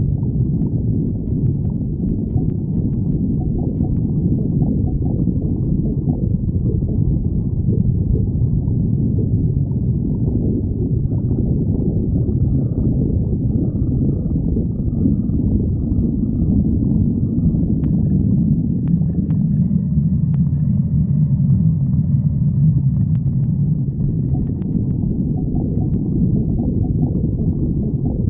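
A person's stomach growling: a continuous low rumbling gurgle, with faint higher squeaks partway through.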